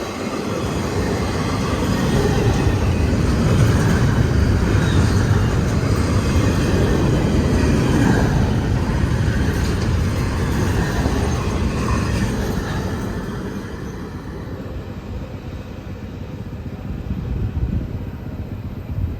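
CSX intermodal freight train's cars rolling past with a steady rumble and wheel noise, which dies down about thirteen seconds in as the train draws away.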